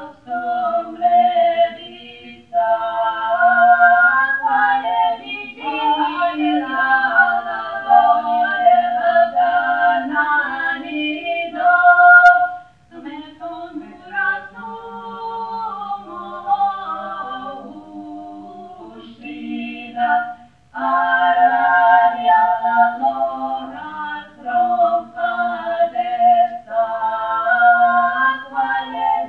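Unaccompanied singing, two or more voices in harmony. The song pauses briefly a few times between phrases.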